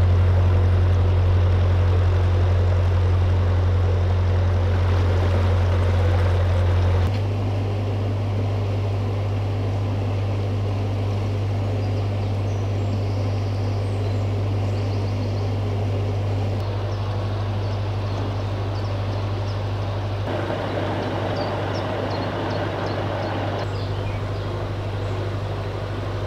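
Narrowboat engine running steadily while cruising, a constant low hum, with faint birdsong in the second half.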